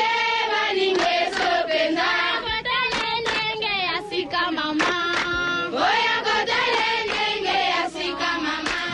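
A chorus of high voices chanting and singing in a mock African tribal style, with sharp percussive accents. It is a comedy sound-effect drop.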